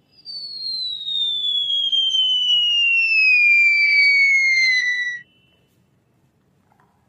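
Descending whistle sound effect: one long tone sliding steadily downward for about five seconds, then cutting off suddenly.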